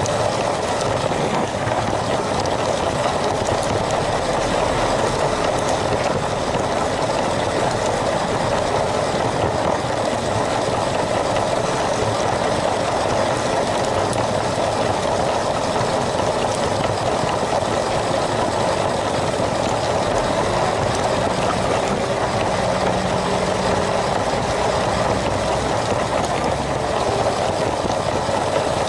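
LEGO train's small electric motor and plastic wheels running steadily along the track, heard up close from on board as an even hum and rolling noise.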